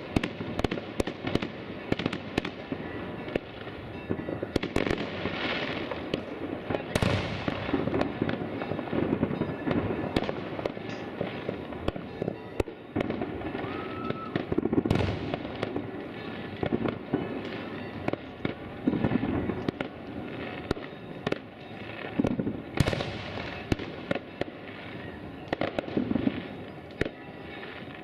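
Fireworks and firecrackers going off in many places at once: a continuous crackle dotted with sharp bangs, some close and some distant, and a few short whistles.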